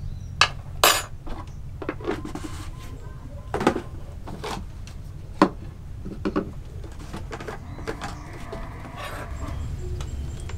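Kitchen handling clatter: a plastic jar and spoon being handled and things set down on a wooden table, heard as about eight separate sharp clicks and knocks. A soft rustling comes near the end.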